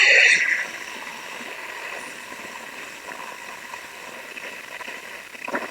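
Ujjayi pranayama inhalation: a long breath drawn in through a deliberately constricted throat, making a steady hiss that is loudest in the first half-second and then softer and even.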